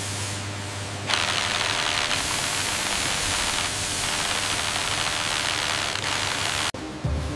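Power tool cutting into metal and throwing sparks: a steady hiss, louder from about a second in and breaking off briefly near the end.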